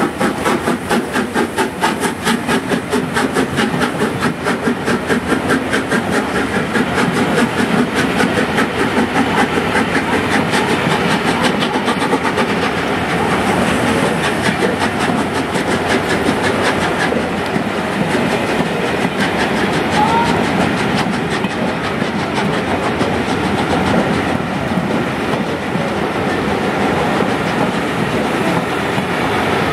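Rebuilt LMS Royal Scot class 4-6-0 steam locomotive 46115 'Scots Guardsman' working hard past, its exhaust beating rapidly and evenly. The beats fade over the first dozen seconds as the engine draws away, and the clatter of its coaches' wheels over the rail joints takes over.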